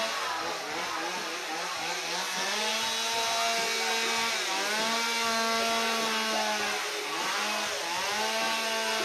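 Chainsaw carving a block of ice. The engine is held at a steady high pitch at full throttle, eases off briefly about two seconds in, again past the middle and again near the end, and winds back up each time.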